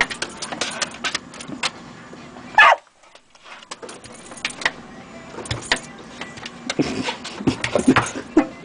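A dog's claws scrabbling and clicking on a window sill, with one short, loud, rising yelp about two and a half seconds in and a few whines near the end as it lunges at a squirrel behind the glass.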